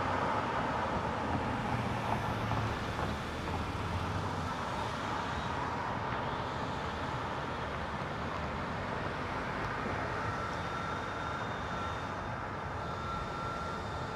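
Road traffic at an intersection: a passing car's engine and tyres are loudest for the first few seconds, then a steady hum of traffic.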